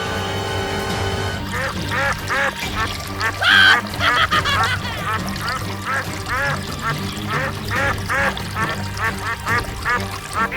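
Rapid series of short animal calls, two or three a second, over background music and a steady low drone.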